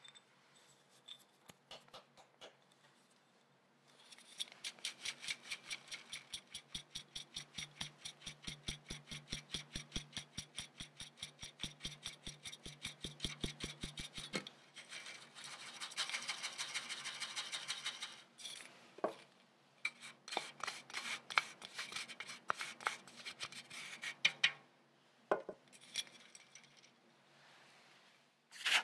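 Dry ingredients with cocoa powder being sifted through a stainless steel mesh sieve into a glass bowl. About four seconds in, the sieve is tapped in a quick, even rhythm for about ten seconds. Then comes a steady rubbing, scratchy sound for a few seconds as the powder is worked through the mesh, followed by slower, irregular taps.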